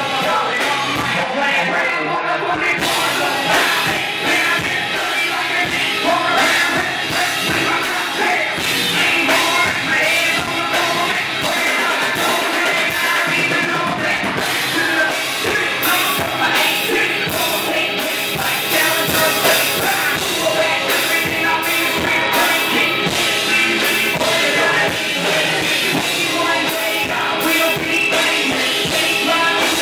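Live rock band playing loud, with a singer over drums and electric guitar.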